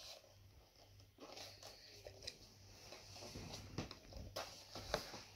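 Faint handling of a cardboard box: fingers scraping and tapping at the carton while trying to pry it open, with a few soft knocks.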